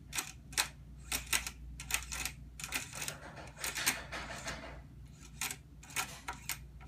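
Irregular clicking of a Tektronix 2235 oscilloscope's front-panel knobs being turned through their detent steps, a few clicks a second, with a short rustle of handling about halfway through.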